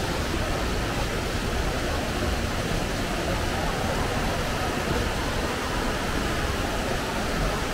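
Steady rush and splash of an indoor atrium water fountain's jets.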